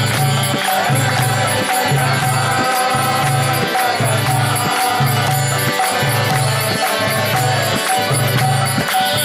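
Kirtan: a mantra being chanted to music, over a steady repeating low drum beat and jingling hand percussion.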